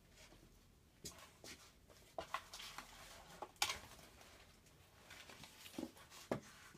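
Faint, scattered small clicks, knocks and rustles of someone rummaging through small tools and objects on a workbench, searching for a pair of small pliers.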